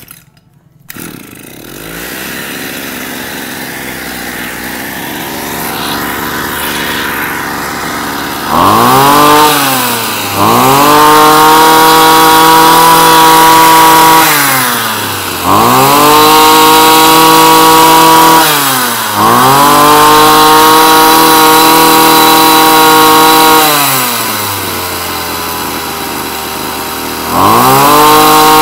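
Komatsu G2KC brush cutter's small two-stroke engine starting about a second in and idling, then revved up to full speed and dropped back to idle five times, each burst held for a few seconds.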